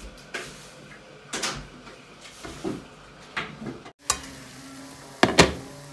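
A few light knocks and handling noises, then, after a cut, hot oil bubbling in a wok with a steady faint hiss. About a second later come two sharp clinks from handling the wok's glass lid, the loudest sounds here.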